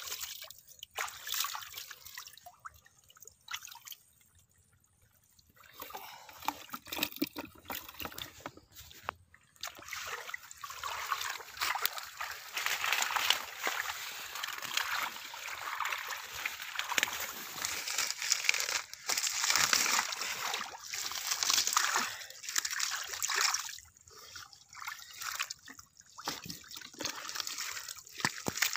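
Hands sloshing and scooping through shallow muddy water, with trickling and small splashes as water and mud are stirred. The sloshing is briefly quieter about four seconds in, then busier and louder through the middle.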